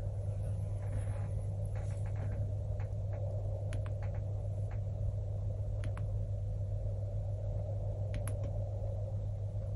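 Steady low hum with a few faint ticks and clicks as the drone's wiring is handled.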